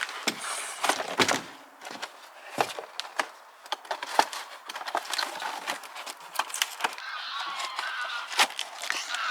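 Bike parts being handled and unwrapped from their packaging: rustling, clicks and knocks, with a wavering squeak of rubbing packing material over the last couple of seconds.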